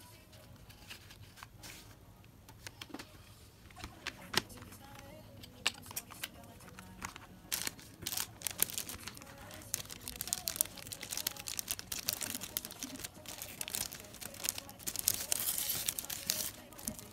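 Clicks and taps of a plastic CD jewel case being handled, then the crinkling of a clear plastic sleeve around the CD, getting loudest near the end.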